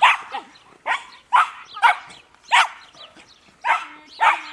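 Dog barking repeatedly in quick, sharp barks, about seven in a row, as it runs an agility course.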